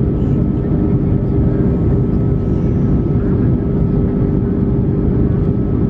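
Cabin noise of an Airbus A330-243 climbing after takeoff: its Rolls-Royce Trent 700 engines running steadily, heard from inside the cabin as a loud, even, deep rumble with a constant drone over it.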